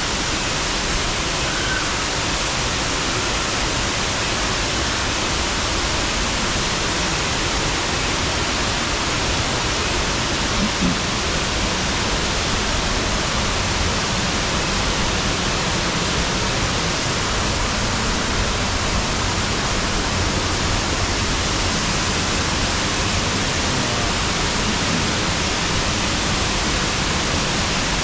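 Waterfall: a steady, even rush of falling water, with one brief faint sound about eleven seconds in.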